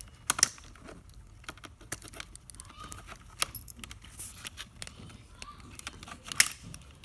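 Irregular small clicks and scrapes of a screwdriver prying plastic retaining clips off a model train locomotive, with louder clicks just after the start and near the end.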